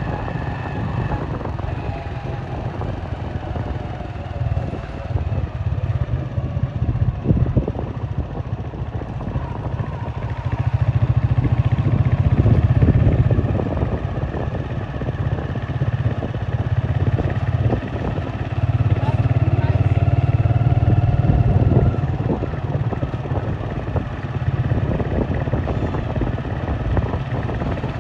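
Steady low rumble of road traffic and vehicle engines, with motorcycles among them. It swells twice, about ten and eighteen seconds in, as vehicles pass close.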